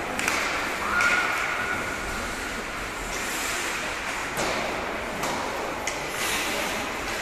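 Ice hockey rink sound during play: skates scraping on the ice under a steady hall noise, with a few sharp clacks of sticks and puck and faint voices.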